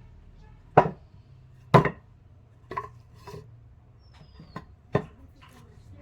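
Wood being struck: about six sharp, irregular knocks, the first two loudest.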